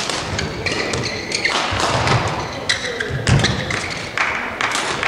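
Badminton doubles rally: rackets hitting the shuttlecock in a quick series of sharp strokes, with players' feet thudding on the court.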